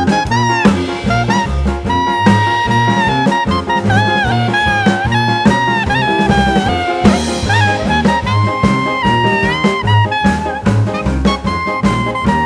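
Background jazz music: a swing-style tune with a brass lead over a walking bass and drum kit beat.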